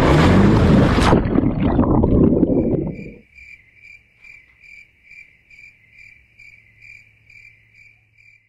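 A motorcycle plunging into water with loud splashing and noise, which cuts off about three seconds in. Then an electronic alarm clock beeps in an even high-pitched pattern, about three beeps a second.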